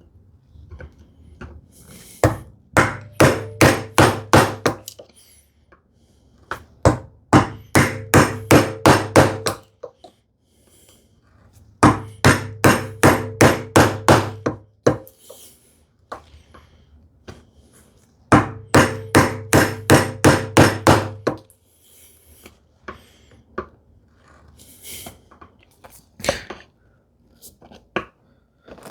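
Bevel-edge chisel struck with a mallet to chop a mortise into a wooden leg: four runs of quick blows, about three or four a second, with quieter levering and scraping of the chisel in the wood between runs.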